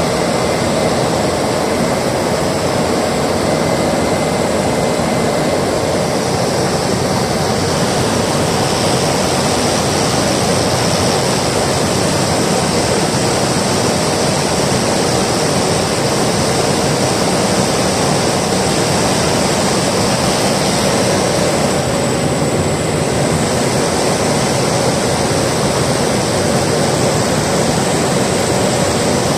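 Steady, loud drone of a small propeller airliner's engine and propeller in flight, heard inside the cabin.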